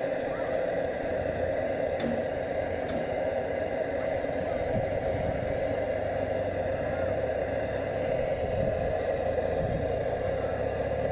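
Pressurised blowtorch burning steadily against the glow bulb of a Lanz Bulldog's hot-bulb engine, preheating it for starting; an even, unchanging rushing noise.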